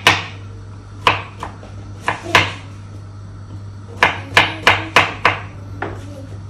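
Kitchen knife chopping cauliflower on a cutting board: sharp knocks in two runs, about five in the first two and a half seconds, then a pause of about a second and a half, then about six more in quicker succession.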